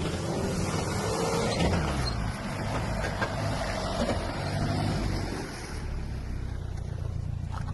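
Off-road 4x4 SUV engine running steadily under load, with a broad hiss over it that fades out about five and a half seconds in.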